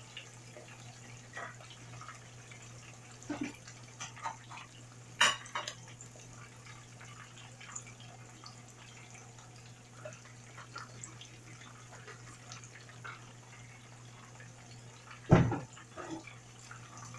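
Salmon shallow-frying in hot oil in a skillet: a steady sizzle with many small scattered pops. Two sharper knocks of pan or utensil, one about five seconds in and one near the end, over a steady low hum.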